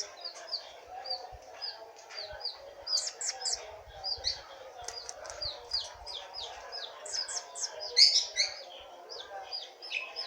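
Blue-crowned hanging parrot (serindit) chirping: rapid, short, high-pitched calls several times a second, with a louder flurry about eight seconds in.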